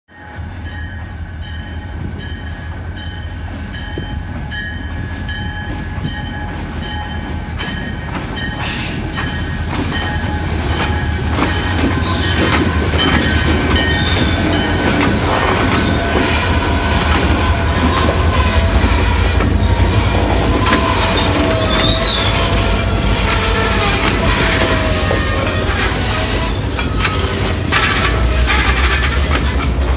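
Freight train with diesel locomotives approaching and passing close by, the engines' low rumble growing louder over the first half. The tank cars then roll past with squealing wheels.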